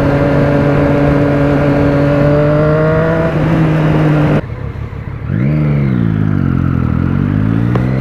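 Motorcycle engine under steady throttle, its pitch slowly rising as it gains speed, over a constant rush of wind and road noise. About four and a half seconds in the throttle closes and the sound drops suddenly. The engine note then swoops up and falls away, and starts climbing again near the end as the rider accelerates.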